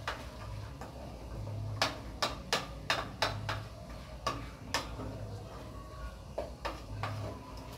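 A spoon stirring sautéing vegetables in a metal saucepan, knocking and scraping against the pan in a dozen or so irregular sharp clicks.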